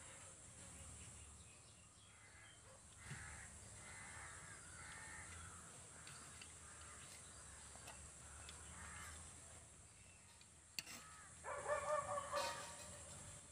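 An animal calling outdoors: a short run of calls near the end is the loudest sound, with fainter calls around four seconds in. A knife knocks once on the granite slab just before the loudest calls.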